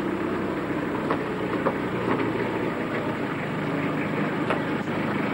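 A van's engine running at low speed as it pulls slowly into a yard, a steady drone with a few faint clicks.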